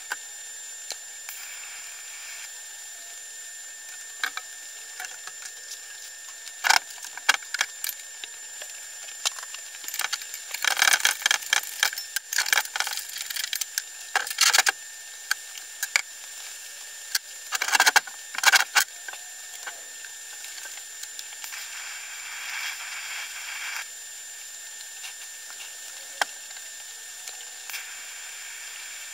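Clanks, knocks and scrapes of a steel car subframe being gripped, shifted and turned over on a steel workbench. They come as scattered knocks and two dense bursts in the middle. A faint steady high whine runs underneath.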